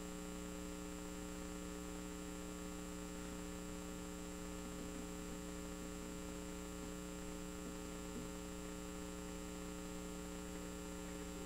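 Steady electrical mains hum: a constant low drone made of a few fixed tones, with a faint high whine above it and no other sound.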